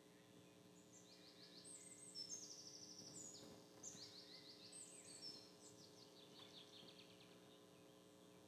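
Songbirds singing: faint runs of quick, high-pitched trills and chirps, over a low steady hum.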